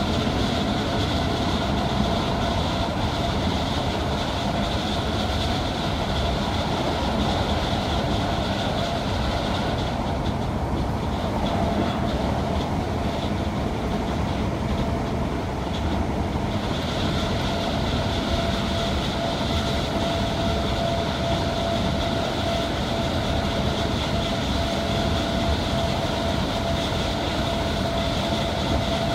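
Inside a Class 319 electric multiple unit running at sustained high speed: continuous wheel-and-rail running noise with a steady whine. The upper hiss eases for several seconds about ten seconds in, then returns.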